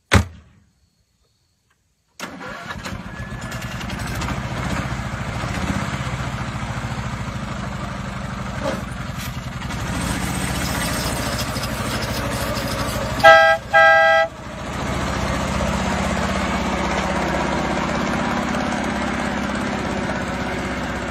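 Small engine of a kid-sized miniature semi truck starting about two seconds in and then running steadily as the truck drives. About two-thirds of the way through it sounds its horn in two short blasts. A single sharp knock at the very start.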